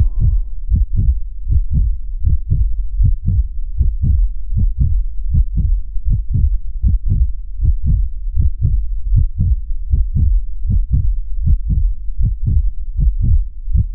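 Heartbeat sound effect: a steady rhythm of low, dull thumps, about three a second.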